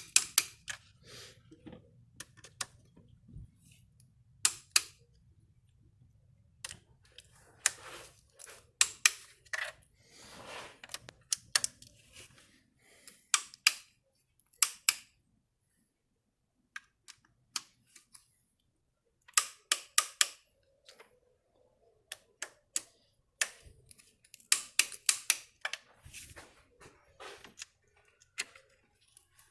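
Click-type torque wrench ratcheting in short runs of sharp clicks, with pauses between runs, as the valve cover bolts are taken one after another to their final light torque of 0.8 kgf·m.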